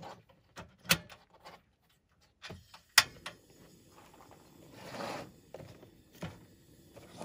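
Portable butane camp stove's ignition knob clicking twice, about a second in and more loudly about three seconds in, as the burner is lit under a pot of water, followed by a faint steady hiss. A brief rustle comes about five seconds in.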